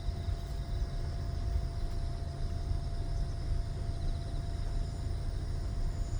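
Outdoor ambience: a steady low rumble with a faint high trill about four seconds in.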